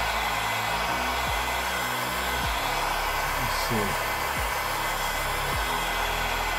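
Trotec industrial heat gun blowing steadily, a constant fan-and-air hiss, as it warms a phone's display to soften the adhesive beneath it. Quiet background music runs underneath.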